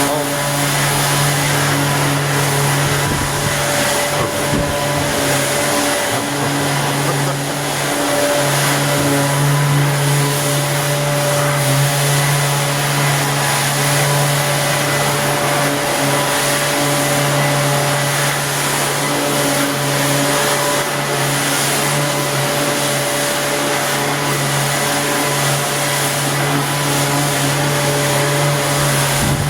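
Electric motor running steadily with a rushing hiss and a low hum, its hum faltering briefly about four to eight seconds in.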